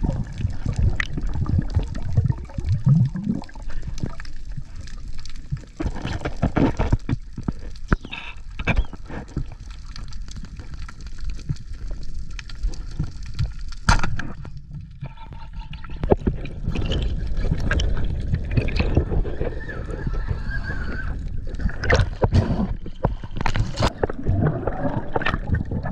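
Underwater sound as picked up by a diver's camera: a muffled, steady rush and gurgle of water, with many scattered clicks and knocks.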